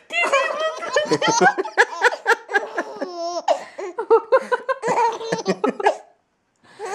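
A baby laughing in a run of short, high giggles that stops briefly near the end.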